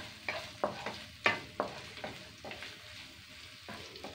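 Spatula knocking and scraping against a non-stick frying pan while stirring curry leaves, garlic, green chillies and Maldive fish frying in oil, with a faint sizzle underneath. The knocks come irregularly, several a second, the loudest about a second in, thinning out in the second half.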